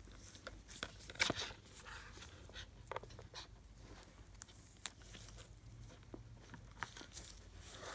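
Faint, irregular clicks and light rustles of small parts being handled: a test cable being plugged into the earphone's socket. The strongest click comes about a second in, over a faint low hum.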